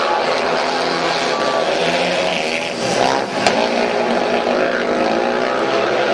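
Three speedway bikes racing together, their 500cc single-cylinder methanol engines running hard at high revs, the pitch rising and falling as they go through the bends and down the straights. A single sharp click about three and a half seconds in.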